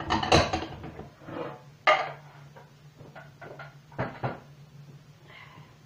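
Kitchen clatter: a short noisy burst at the start, then a sharp knock about two seconds in and a few lighter clicks and knocks of dishes and utensils, over a faint steady hum.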